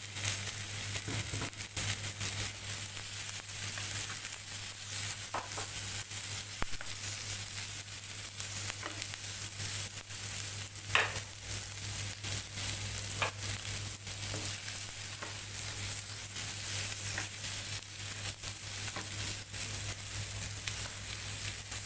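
Shredded grilled chicken and sliced onions sizzling and crackling in olive oil in a nonstick frying pan, stirred with a spatula, with a few brief scrapes about halfway through.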